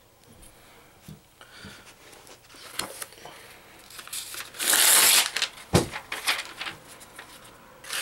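Phone book paper being handled: a page torn out with one loud rip about halfway through, a dull thump just after, then paper rustling and crinkling.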